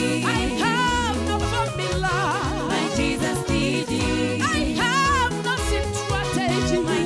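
Live gospel band music with a steady beat and bass notes under a high lead melody that slides and wavers.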